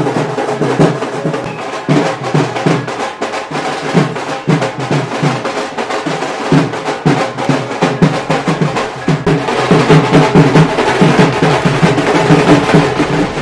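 Drums played in a fast, dense rhythm, loud throughout and a little louder in the second half.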